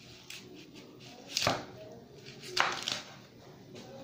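A knife cutting through a dragon fruit and striking the board beneath, two sharp chops about a second and a half and two and a half seconds in.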